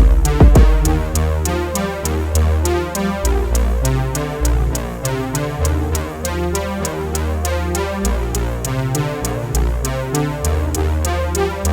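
Electronic background music with a steady beat: synthesizer over a deep bass line, with quick regular ticks about four times a second.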